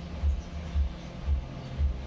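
Panasonic microwave oven running and heating water: a steady low hum with a low pulse about twice a second, and no arcing crackle, as it works normally after a magnetron replacement.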